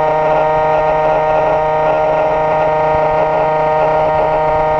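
Battery-driven motor generator (a Gerard Morin replication) running at steady speed: a loud, steady whine made of several tones.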